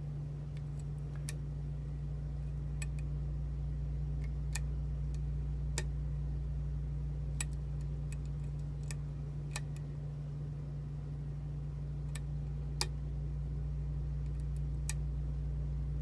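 A lock pick working the pin stack of a challenge lock: light metallic clicks and ticks at irregular intervals, over a steady low hum.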